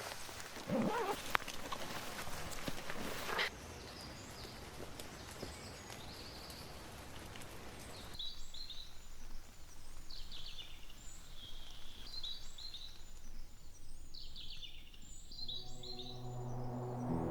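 Forest ambience: a steady rushing noise for the first several seconds, then songbirds chirping and singing in repeated short phrases. Soft music comes in near the end.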